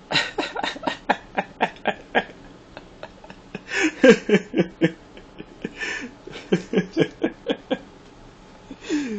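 A toddler's voice making short, repeated chuckling and babbling sounds in quick runs, with a few longer falling-pitch sounds between them.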